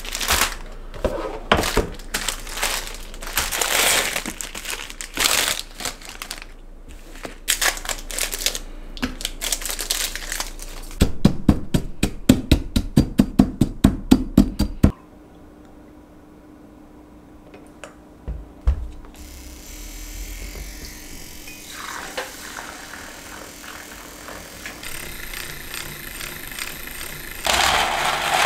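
Kitchen prep sounds: plastic packaging crinkling and rustling, then a fast, even run of about twenty knife chops on a cutting board that stops suddenly. After a short quiet spell, a soft steady hiss sets in.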